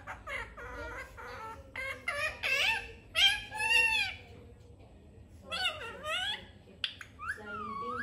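A pet green parakeet vocalizing: several short, high-pitched phrases that rise and fall, about one every second or two.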